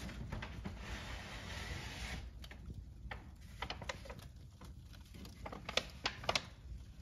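Fire burning bags in a fireplace, crackling with a low steady rumble. A hiss rises about a second in, and a run of sharp pops comes near the end.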